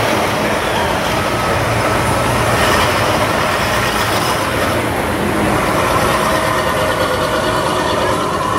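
Big-block V8 of a 1970 Chevrolet Chevelle SS running steadily as the car crawls past at walking pace.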